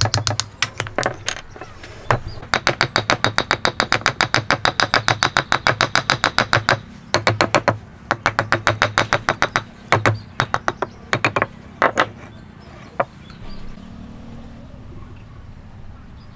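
Hammer striking a square peg and wooden joint pieces in quick, even taps, about five a second, in runs that break off and restart, with a few single knocks near the end. The taps drive the peg home to lock the timber joint.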